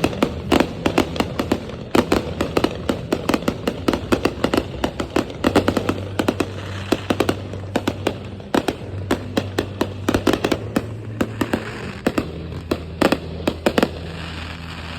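Fireworks going off in a rapid, unbroken string of sharp bangs and crackling pops, several a second, with a steady low hum beneath.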